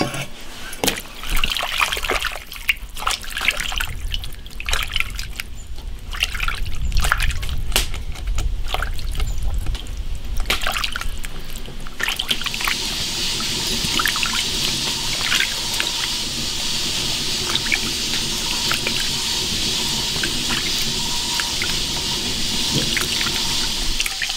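Hands washing chopped cured pork ribs in a basin of hot water, the water sloshing and splashing in irregular strokes. About halfway through, a steady rush of running water starts and carries on.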